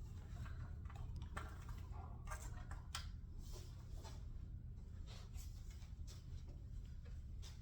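Faint scattered clicks and rustles over a steady low hum: quiet room tone with small handling noises.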